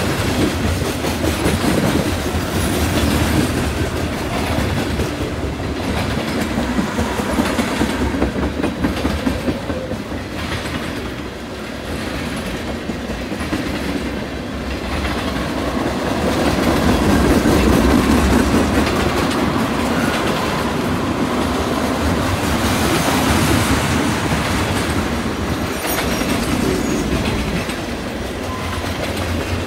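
Freight cars of a CN train rolling past steadily, with a continuous clickety-clack of steel wheels over the rail joints and a junction switch. The cars passing are covered hoppers and tank cars.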